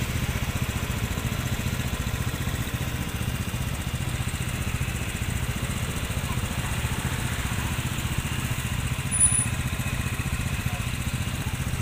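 Motorcycle engine idling with a steady, even low rumble. A brief high-pitched beep sounds about nine seconds in.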